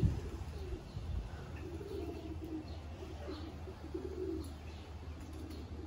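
Racing pigeons cooing at the loft: soft, low coos repeating every second or so. A brief knock sounds right at the start.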